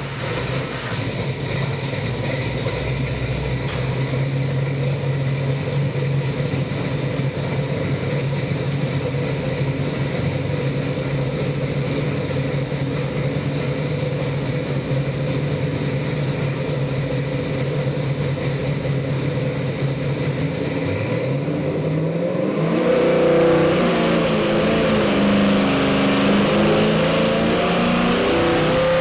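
Ford 347 small-block V8 crate engine with a Holley carburetor idling steadily, then after about twenty seconds revved up and held at higher revs, its pitch rising and wavering.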